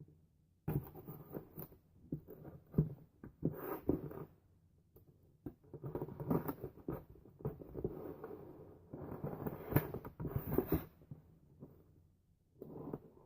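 Packing tape being torn off a cardboard shipping box and the box pulled open by hand: irregular scratching, rustling and tearing with a few sharp clicks, pausing now and then.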